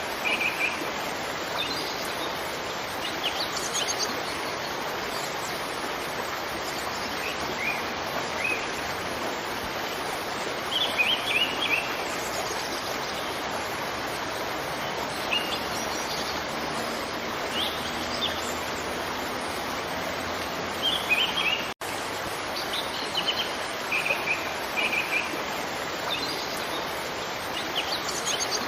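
Steady rush of a waterfall, with small birds chirping in short high clusters every few seconds over it. The sound drops out for a split second about three-quarters of the way through.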